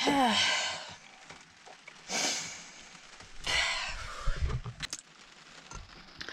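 A person sighing, a falling voiced exhale, then two more long breathy exhales, with a couple of sharp clicks near the end.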